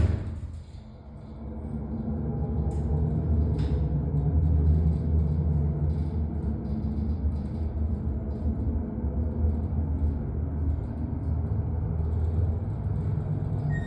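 Minnesota Elevator passenger elevator travelling down, a steady low rumble and hum that builds up over the first couple of seconds and then holds. There are two brief clicks a few seconds in.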